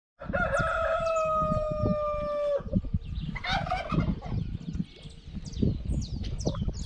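A rooster crowing: one long call held at a steady pitch for about two seconds, which then breaks off. A shorter, rougher call follows, then many quick high chirps of small birds.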